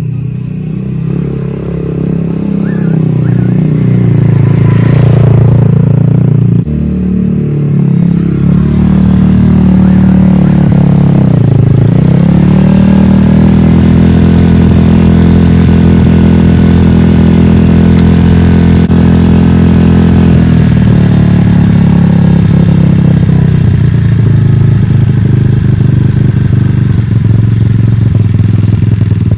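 Dirt bike engine running under way on a test ride after a carburettor swap. The revs build over the first few seconds, dip sharply about twelve seconds in, climb and hold steady, drop back a little past twenty seconds, then rise again near the end.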